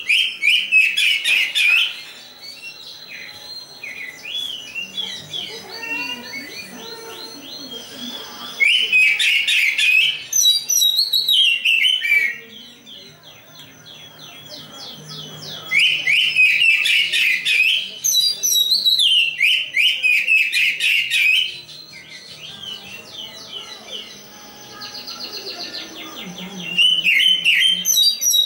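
Oriental magpie-robin of the black-breasted Javan form (kacer dada hitam) singing: four loud bursts of rapid, high chattering notes a few seconds each, with softer twittering in the gaps between.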